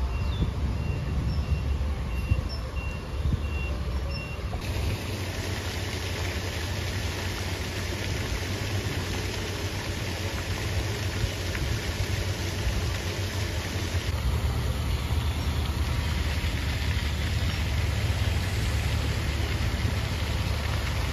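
Outdoor ambient noise picked up by a phone: a steady hiss over a low rumble such as wind on the microphone and distant traffic, changing in character at two edits, about four and a half and fourteen seconds in.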